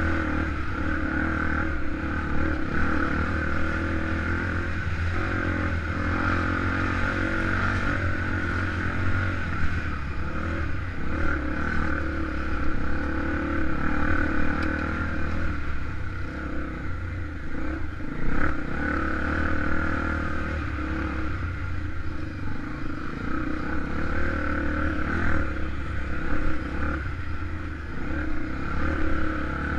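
Honda XR 250 Tornado trail bike's single-cylinder four-stroke engine running while riding, the throttle opening and closing in small surges, with some clatter throughout.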